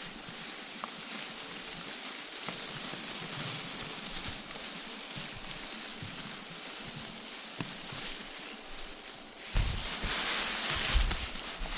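Confetti sound effect: a steady, papery high hiss of scraps rustling and falling, with a few faint ticks. About nine and a half seconds in it swells louder, with low thuds.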